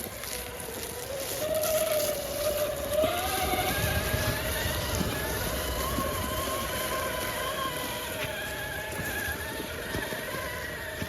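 Electric motor and geartrain of a 1/6-scale RC rock crawler whining as it drives, the pitch rising and falling with the throttle.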